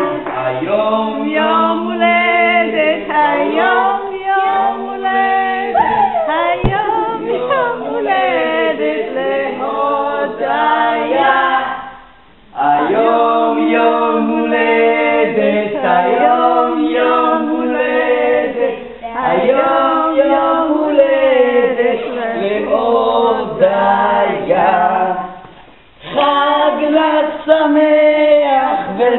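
Several voices singing together without instruments, breaking off briefly twice.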